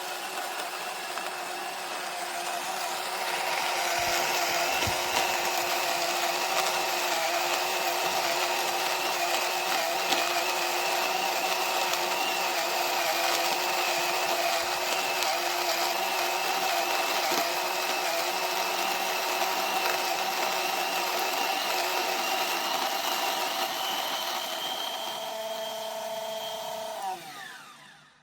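SHARDOR Electric Burr Coffee Grinder 2.0 running a grind cycle: a steady motor whine over grainy grinding noise that grows louder about three seconds in. Near the end the motor winds down with a falling pitch and stops.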